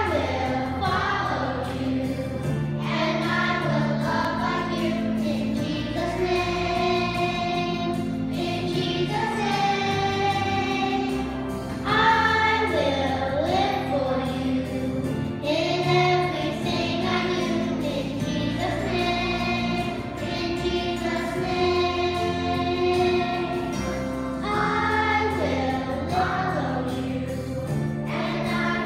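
Children singing a song into microphones with a children's choir, over instrumental accompaniment with steady held bass notes.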